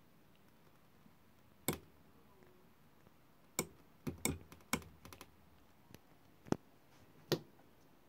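Sharp mechanical clicks, about seven or eight at irregular intervals, from a hand working an RBGT-62 radiometer: its rotary range switch being turned through its positions and the instrument being handled.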